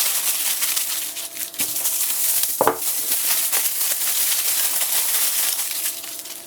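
Aluminium foil being crumpled by hand into a ball: dense, steady crinkling and crackling that fades near the end.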